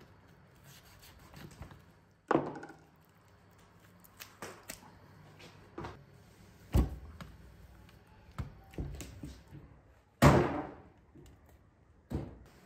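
A blade chopping cow legs on a wooden stump chopping block: four loud knocks a couple of seconds apart, with quieter knocks and scrapes between them.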